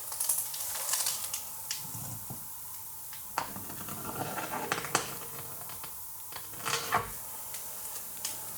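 Scattered sharp clicks and short scraping rustles over a steady hiss.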